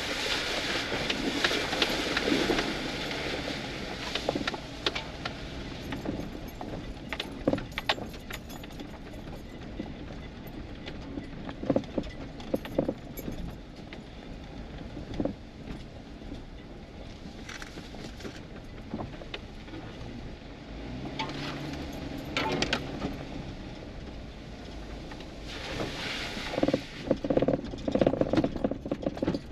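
Cab noise of a 4x4 driving slowly over a rutted dirt track: a steady engine hum and tyre noise with frequent rattles and clunks as it bumps through the ruts. A louder run of rattling comes near the end.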